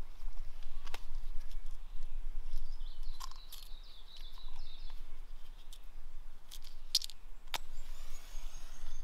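Woodland ambience with small birds chirping and a low steady rumble. A few sharp clicks and scrapes come from fire-lighting gear being handled beside a tinder-filled stone fire ring. A thin high whistle starts near the end.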